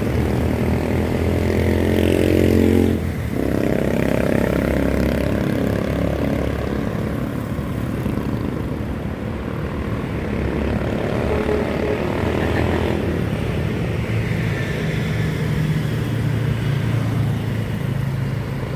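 Heavy diesel tractor trucks, Howo T7H rigs, driving past with their engines running. There is a sharp break in the engine sound about three seconds in, and another change in pitch around two-thirds of the way through as the next truck goes by.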